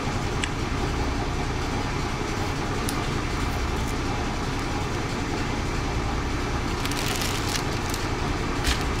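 Washing machine running in the background, a steady even noise with a low hum. Near the end, a few short rustles of plastic sandwich bags being handled.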